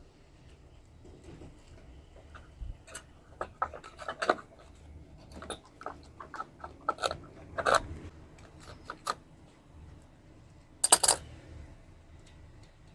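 Small metal parts and hand tools being handled on a workbench: irregular metallic clicks and clinks, with a louder short rattle near the end.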